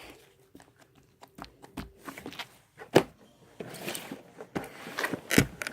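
Crunchy slime with sprinkles mixed in being squeezed and worked by hand: irregular small clicks and crackles, with two louder sharp pops, one about three seconds in and one near the end.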